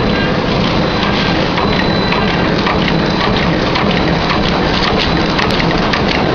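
Side-seal bag-making machine running: a steady, dense mechanical clatter of many small rapid clicks.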